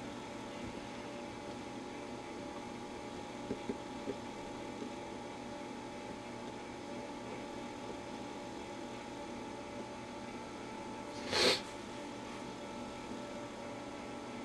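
Steady electrical mains hum from powered tube test equipment and a TV chassis on the bench. A few faint clicks come about three and a half seconds in, and a short rush of noise about eleven seconds in.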